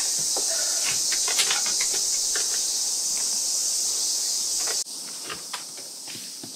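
A steady, dense high-pitched buzz of cicadas, with a few brief chirps and clicks over it. Near the end the buzz cuts off abruptly and gives way to a quieter outdoor background.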